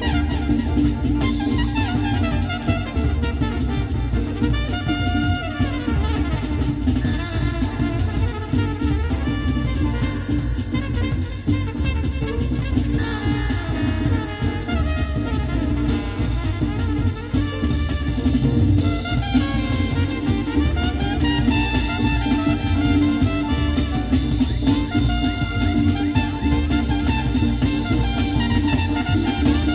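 Club jazz with drum kit and saxophone or brass, played loud through a custom car audio system with FaitalPRO woofers and midranges and Technics tweeters, heard inside the car's cabin.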